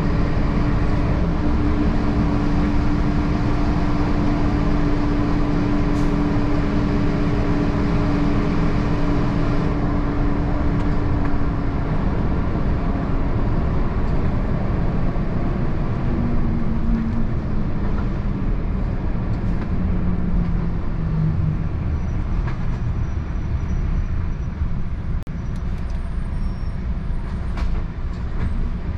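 Semi-truck driving: engine and road noise run steadily. The engine's hum holds one note for about the first twelve seconds, then comes back lower twice, and the noise eases slightly near the end.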